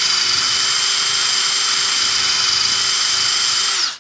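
Cordless drill running at a steady high speed with a steady whine, used to clean rust off a small-block Chevy cylinder head. It stops just before the end.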